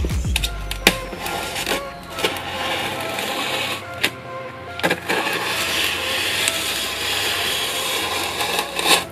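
Electronic background music in a quieter passage, with the heavy bass dropping out at the start.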